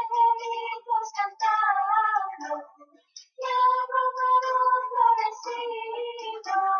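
A song with a high singing voice carrying the melody, in phrases, with a short break about three seconds in.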